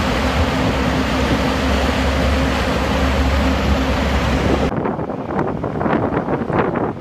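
Small boat's engine running steadily at sea under wind and water noise. About two thirds of the way through, the sound changes abruptly to gusty wind on the microphone and water splashing against the hull.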